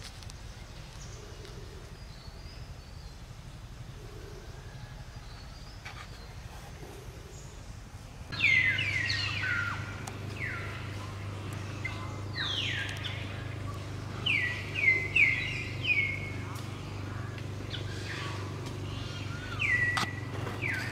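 Birds calling with short, sharply falling chirps, some in quick runs of three, over a steady low hum that starts with them about a third of the way in; before that only faint outdoor background noise.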